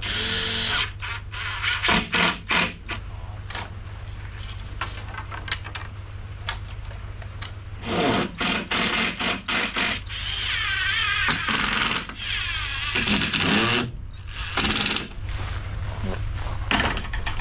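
Sharp knocks and taps in short bursts from hand work on a wooden cabin door, with a run of about six knocks in the middle.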